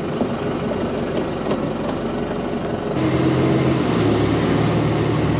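Motor boat's engine running under way, under an even rushing noise. About three seconds in, the sound changes abruptly to a steadier engine hum with a clear low tone.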